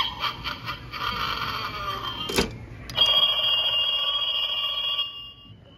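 Hyde & EEK! Boutique animated spooky telephone prop playing its electronic ringing through its small speaker for about two seconds. A sharp click follows, then a steady electronic tone for about two seconds that stops shortly before the end.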